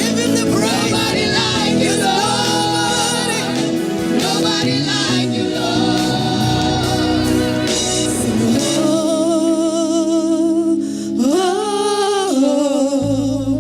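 Gospel worship music: a church worship team singing a praise song over accompaniment, holding long notes in the second half.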